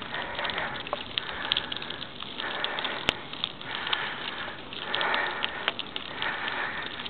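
A cyclist breathing hard and rhythmically on a climb, about one breath a second, over scattered ticking and crackling from the bike and its tyres on the road. There is one sharp click about three seconds in.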